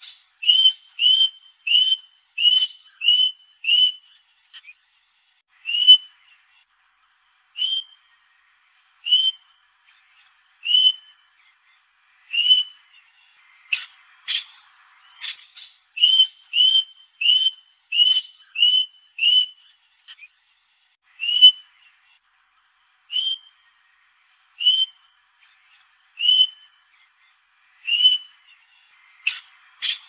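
Australian king parrot calling: short, sharp, high-pitched whistles, given in quick runs of six or seven notes about half a second apart that alternate with single notes about a second and a half apart.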